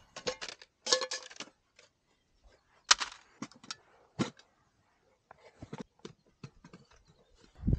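Small metal camp pots and cups being handled and set down: a few separate clinks and knocks, the sharpest about a second in, around three seconds and just after four seconds, with lighter taps between.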